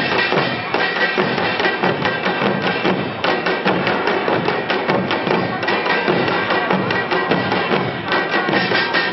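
An ensemble of janggu, Korean double-headed hourglass drums, played together in a fast, driving rhythm of dense, sharp stick strikes that keeps going without a break.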